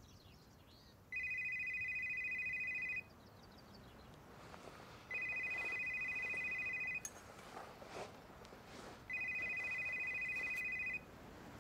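A phone ringing unanswered with a fast, trilling electronic ring: three rings, each about two seconds long, with about two seconds of quiet between them.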